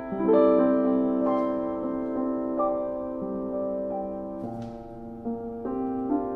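Ritmuller RS-series upright piano played slowly: sustained chords that ring on as new notes are struck every second or so, softening in the middle and growing louder again near the end.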